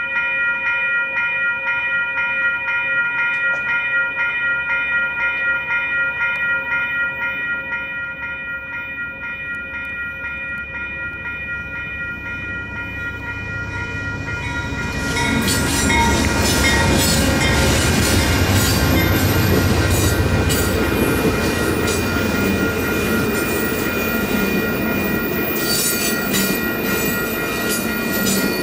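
Electronic crossing bells (WCH Type 4) ring steadily at the crossing. From about the middle a low diesel rumble builds, and about fifteen seconds in an Amtrak passenger train led by GE P42DC diesel locomotives arrives and passes. Loud rushing and wheel clatter from its double-deck cars go on over the bells.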